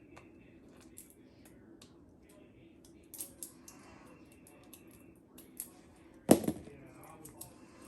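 Plastic toy packaging being handled and worked open by hand, with scattered small clicks and crinkles and one loud knock about six seconds in.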